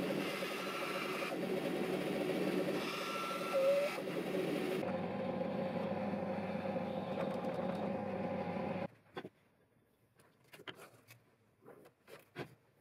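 Band saw running and cutting a steel knife blank, with a short squeal about four seconds in. About five seconds in it gives way to a drill press running and drilling. The machine stops suddenly near nine seconds, leaving light scrapes and taps of hand work on the bench.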